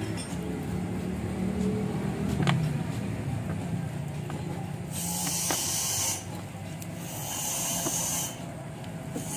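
Plastic squeeze bottle squirting fluid onto a tractor's bare engine block, sputtering, with two hissing spurts about a second long in the second half and a few light clicks, over a steady low hum.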